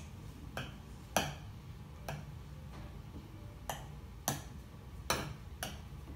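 Light, irregular clicks and taps against a mixing bowl as slime is stirred and worked in it, about seven in six seconds.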